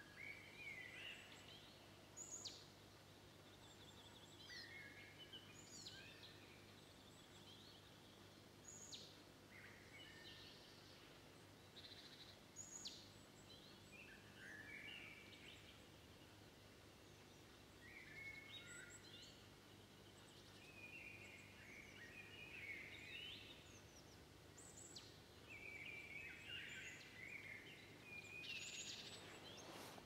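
Wild songbirds calling and singing faintly: sharp, very high single notes every few seconds mixed with short warbling phrases, over a steady low hum.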